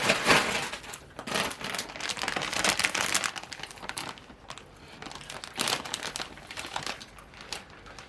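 Paper food packaging being handled and crinkled, in irregular bursts that are densest in the first few seconds and thin out toward the end.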